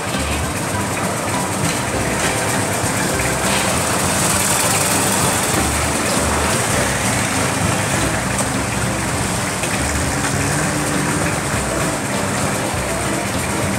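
A boat engine running steadily on the canal, a continuous low hum under dense background noise.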